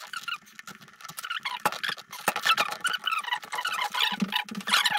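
Hands working on a motocross boot: a busy run of small clicks, taps and rubbing squeaks from the boot's plastic and leather being gripped and pressed.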